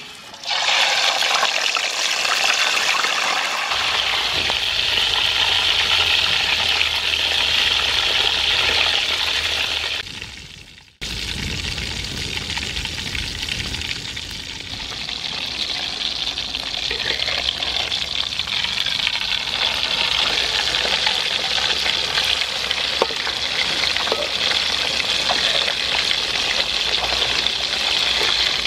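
Whole fish deep-frying in hot oil in a wok: a loud, steady sizzle that starts as the fish goes into the oil, with scattered small pops. It breaks off for a moment about eleven seconds in, then carries on.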